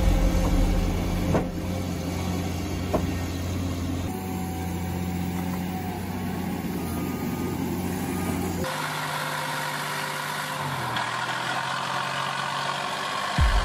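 Heavy diesel machinery running steadily around a John Deere forestry skidder mired in mud, with a few brief knocks. After an abrupt change about two-thirds through, a different diesel engine runs: an old military-style logging truck, its engine note dropping a little soon after.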